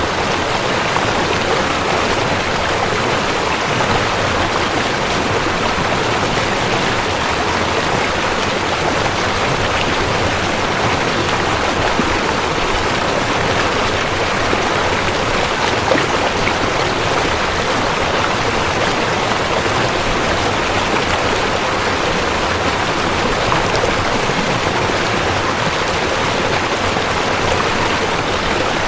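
Rushing river: fast water flowing in a steady, even rush.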